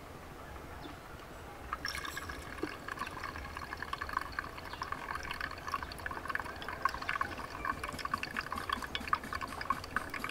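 Brewed coffee trickling and dripping from a pour-over dripper into a glass server. Starting about two seconds in, it becomes a steady rapid patter with a light glassy ring.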